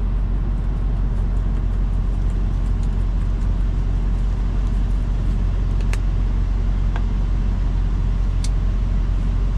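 Semi-truck's diesel engine idling, a steady low drone heard inside the sleeper cab, with a few faint clicks of cutlery on a plate in the second half.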